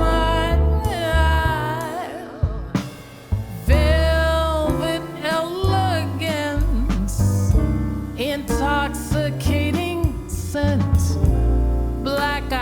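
Live jazz band playing a slow ballad, with piano, guitar, bass and drums under a woman's singing voice.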